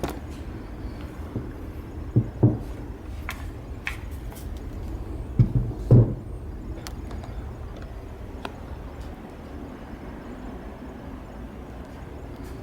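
A few dull knocks and faint clicks as a 12-gauge semi-auto shotgun is handled and turned over. There is a pair of knocks about two seconds in and a louder pair near the six-second mark, over a steady low rumble.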